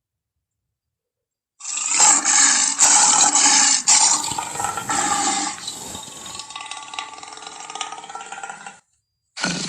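A big cat's harsh, noisy vocalisation, presented as a tigon's. It starts about a second and a half in and is loudest over the next few seconds, then weakens into a quieter, more tonal growl and stops shortly before the end.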